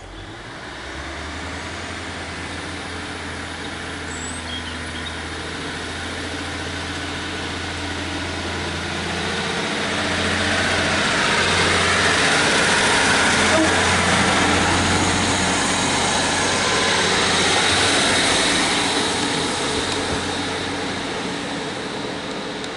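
Class 150 Sprinter diesel multiple unit pulling away: its underfloor Cummins diesel engines run with a steady low drone under power, growing louder with wheel-on-rail noise as the cars pass close by, then fading as the train draws away.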